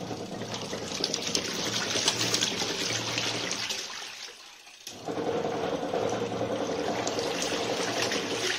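Washing machine agitating a tub of soapy water and clothes: a steady motor hum under water churning and sloshing. It stops for about half a second around four seconds in, then starts again.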